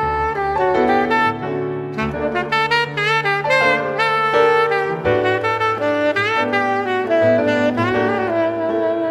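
Background jazz music: a horn plays a moving melody over a bass line.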